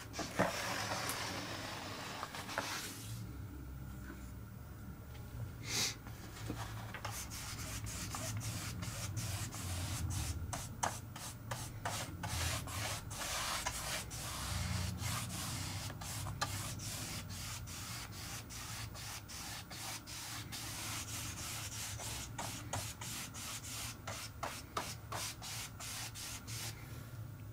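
Paintbrush brushing emulsion paint back and forth across a model aircraft wing in quick repeated strokes, with a short pause a few seconds in.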